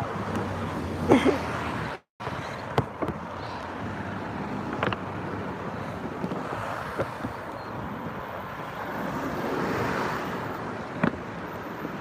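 Road traffic passing on a multi-lane road, with wind buffeting the phone's microphone and a few light knocks. The sound cuts out for a moment about two seconds in.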